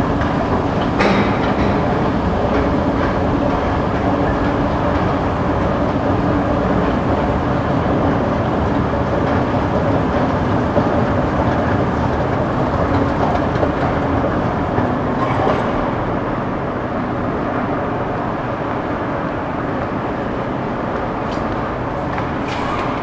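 Station escalator running, a steady mechanical rumble and clatter with a low hum that eases off about sixteen seconds in. A few sharp clicks follow near the end.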